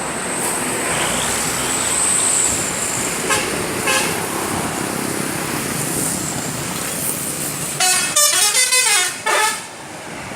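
Passing bus and road traffic, with two short horn toots about three and four seconds in. Near the end comes a loud 'telolet' musical bus horn, several tones playing a quick up-and-down tune for about a second and a half before it cuts off.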